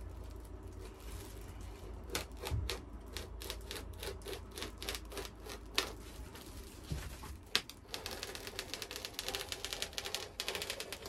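A knife blade cutting and scoring a foil-faced sound-deadening mat on a van floor, making a crackling run of sharp clicks that starts about two seconds in and becomes a fast, dense crackle near the end.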